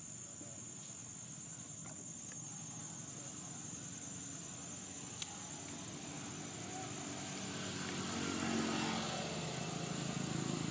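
A motor engine running, growing louder over the last few seconds as it draws near, with a steady high-pitched whine throughout and a single sharp click about five seconds in.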